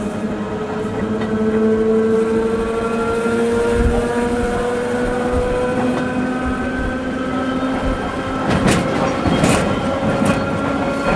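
Train running with a steady whine that rises slowly in pitch as it gathers speed. Near the end comes a short run of clicks and knocks.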